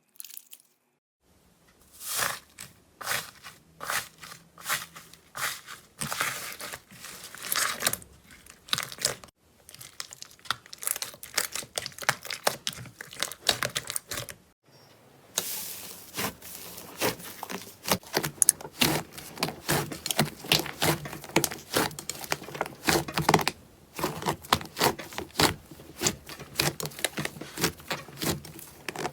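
Slime being squeezed and pressed by hand, making a dense run of sharp crackling and crinkling clicks. There are short pauses about a third of the way in and about halfway through.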